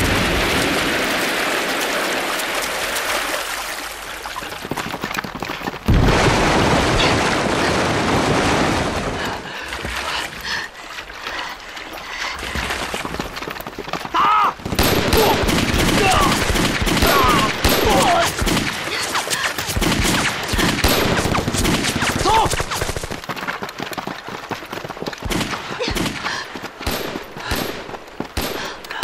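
Battle sound effects: explosions bursting in shallow river water, with a heavy blast about six seconds in. From about halfway through comes rapid rifle and machine-gun fire.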